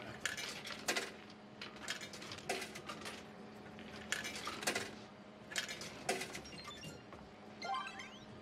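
Coins fed one at a time into an arcade game cabinet's coin slot, a string of about ten metallic clinks and drops, over a faint steady hum. Near the end the game answers with a short rising electronic jingle as player 2 is credited.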